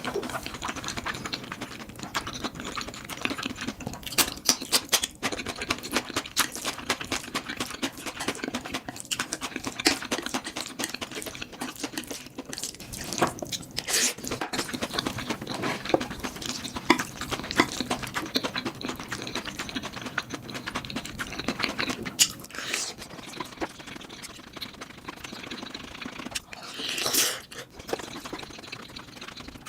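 Close-miked eating of spicy fire noodles: chewing with a dense stream of small wet mouth clicks and smacks, and a short louder hiss about 27 seconds in.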